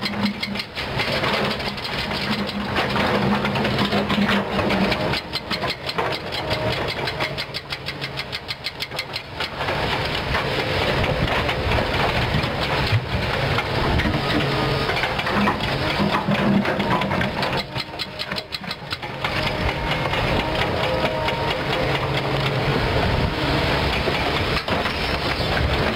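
Kobelco SK200 hydraulic excavator's diesel engine running steadily while it works, swinging and loading stone. Twice it drops for a few seconds to a quieter, rapid ticking beat before the steady run comes back.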